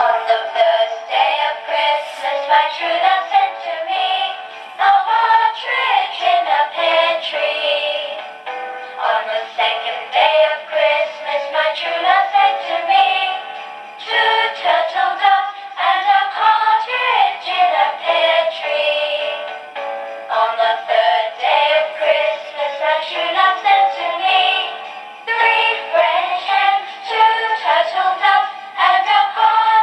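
A Christmas song with a singing voice played through the small speaker of a voice-IC sound module, thin and with no bass. It starts abruptly at the beginning and plays on steadily.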